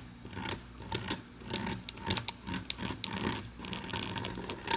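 Small rotary-tool burr cutting texture into a briar pipe bowl at slow speed under heavy pressure: a steady low motor hum with irregular scratchy clicks as the burr bites the wood.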